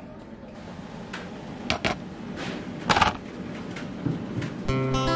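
Canteen kitchen ambience with a few sharp clinks and knocks of dishes and utensils, the loudest about three seconds in. Guitar music comes in near the end.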